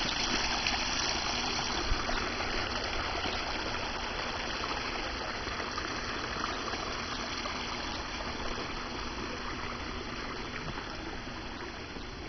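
Water running steadily over rocks, growing gradually fainter.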